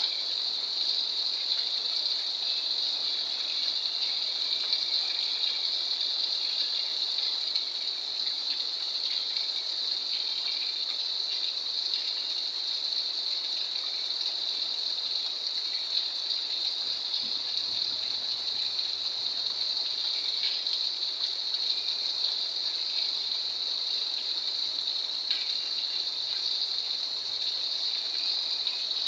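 Steady rain falling, an even rushing hiss with a constant high-pitched drone over it.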